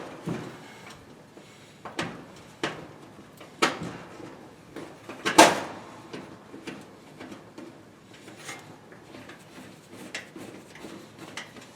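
Clicks and knocks of metal parts and a screw being handled while fitting the rear bearing cup plate of a Frigidaire dryer, a handful of separate knocks with the loudest about five seconds in, then lighter ticks.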